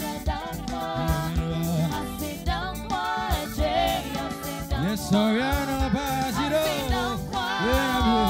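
Live gospel song: several singers on microphones sing together, two or more voices at once, over a band with keyboards and drums.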